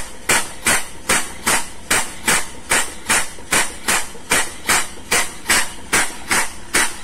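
Air-operated double-diaphragm pump running, each stroke a knock with a sharp puff of exhaust air, about two and a half strokes a second in an even rhythm. It is stripping the leftover crude palm oil that the ship's main pumps can no longer draw from the cargo tank.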